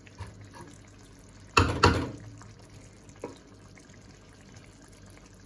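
Wooden spatula stirring through a wet curry in a pan, with two sharp knocks close together a little under two seconds in and a lighter knock about a second later.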